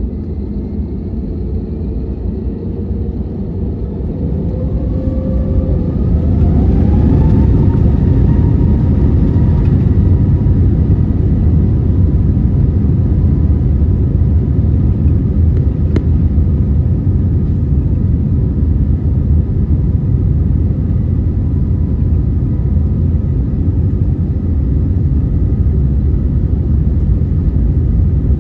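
Airbus A321 jet engines heard from inside the cabin, spooling up to takeoff thrust with a rising whine about four to eight seconds in. After that comes a steady, loud rumble through the takeoff roll.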